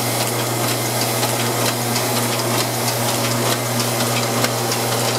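Multi 1450 offset press running, feeding blank sheets from the feeder through to the delivery: a steady hum with an even, rapid clicking of the sheet-feed mechanism, a few clicks a second. It is a test run of the paper path with no printing.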